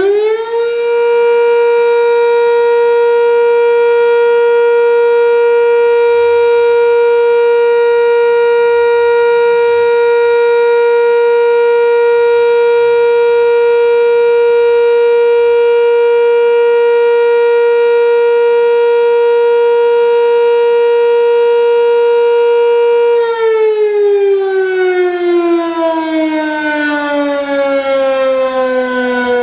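Sentry 3V8-H electromechanical outdoor warning siren finishing its wind-up just after the start and then holding a loud, steady tone. About 23 seconds in it begins to wind down, its pitch falling steadily.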